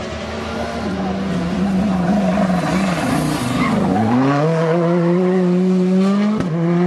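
Rally car engine working hard through a tight hairpin: revs wobble and dip as the car slides around the turn with some tyre noise, then climb and hold high as it accelerates away, with a brief break at a gear change near the end.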